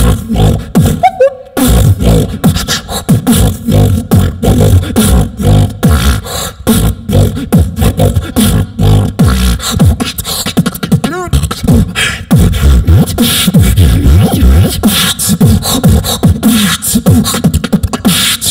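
Live solo beatboxing into a handheld microphone, amplified through a PA: a dense, fast run of vocal kick and snare hits over deep bass. There is a short break about a second and a half in, and a brief wavering pitched sound around eleven seconds.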